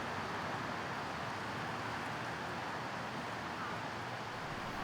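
A steady, even rushing noise with no distinct events, holding the same level throughout.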